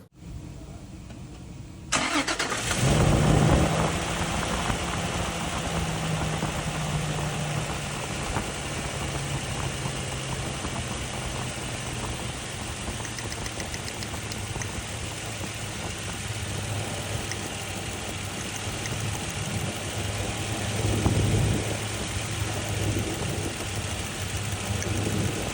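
Toyota Land Cruiser engine starting after about two seconds, flaring briefly, then settling into a steady idle whose pitch drops gradually as the fast idle comes down. It grows briefly louder again near the end.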